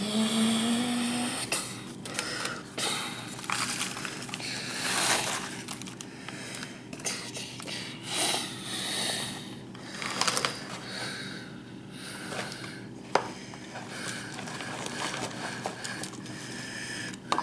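Paper scraps and cardboard boxes being handled on a table: irregular rustling and scraping over and over, a short rising hum in the first second or so, and a sharp click about 13 seconds in.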